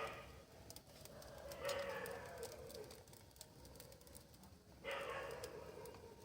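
An animal calling three times, a few seconds apart, with scattered faint clicks.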